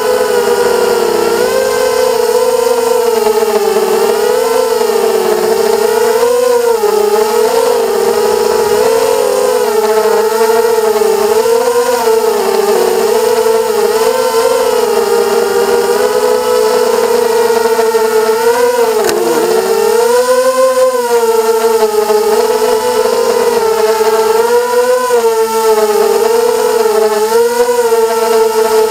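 FPV racing quadcopter's brushless motors and propellers whining, heard through its onboard camera. The pitch rises and falls constantly with the throttle, with a sharp drop and climb about two-thirds of the way through.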